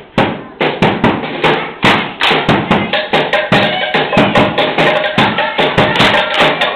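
Samoan sasa dance: a seated group slapping their bodies and clapping in unison, sharp slaps in a fast, even rhythm that quickens.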